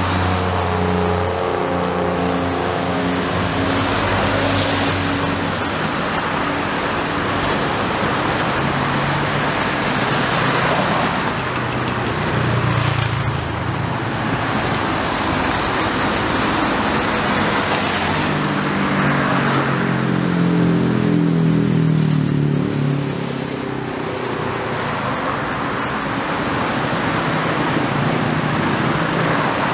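Road traffic: cars and vans passing close by one after another, a continuous rush of tyres and engines that swells as each vehicle goes past.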